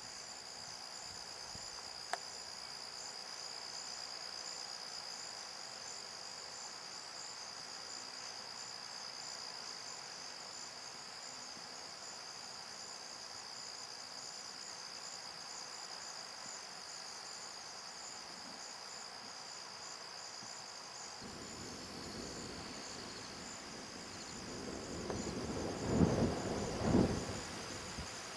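Field insects chirping steadily in a high, pulsing drone. Near the end a few louder, low, short sounds come in over it.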